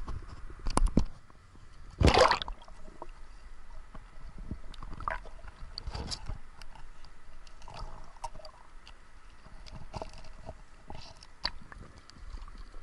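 Water splashing loudly about two seconds in as a diver goes under, then muffled underwater sound from the submerged camera: scattered small clicks and knocks over a faint watery hiss.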